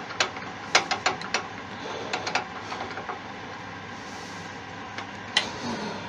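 Light clicks and taps of small metal pen parts and the antler barrel being handled and lined up. There are a quick run of clicks in the first two and a half seconds and two more near the end.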